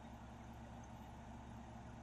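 Faint, steady low hum of a heavy diesel engine idling at a distance.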